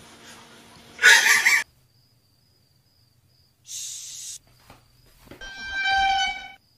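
A cat gives a short, loud cry about a second in. Later comes a hushing 'shh', and near the end a steady high tone holds for just over a second.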